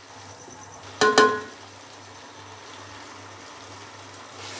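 A ringing metal clink, two strikes close together about a second in, typical of a spoon knocking against the rim of the metal cooking pot as spices are tipped in, over a faint low hum. Near the end the frying masala starts sizzling again.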